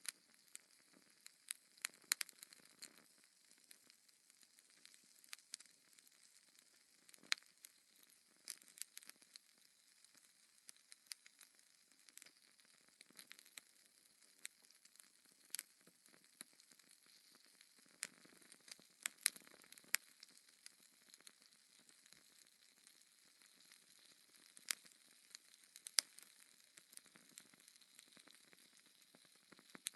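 Logs burning in a fireplace, crackling: irregular sharp pops and snaps, a handful of them louder, over a faint steady hiss.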